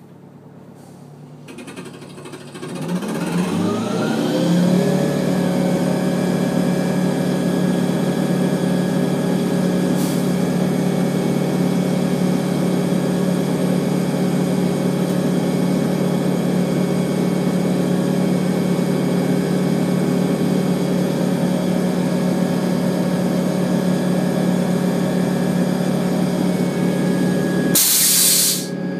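The Oshkosh T-12 crash truck's engine and water pump speed up with a rising whine over a few seconds as the Rhino bumper turret is switched on. They then hold a steady high drone while the turret discharges water. A short, loud hiss sounds near the end.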